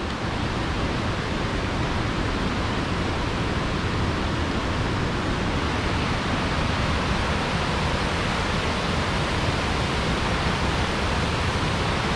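Steady rush of a waterfall and river rapids tumbling over rock, an even roar that holds at the same level throughout.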